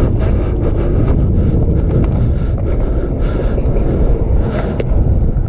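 Wind buffeting the camera microphone, a loud low rumble, with a few faint clicks, one near the end.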